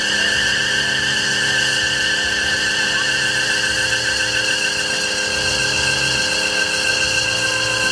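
Rear tyres of a Chevrolet El Camino squealing without a break in a stationary burnout, the engine held at steady high revs. The squeal is a high, slightly wavering tone.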